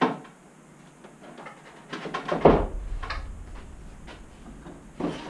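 Knocks and clatter of the wooden parts of a plywood-and-4x4 CNC table being handled as a long beam is taken off it: a sharp knock at the start, a louder cluster of knocks with a deep thud about two to three seconds in, and another knock near the end.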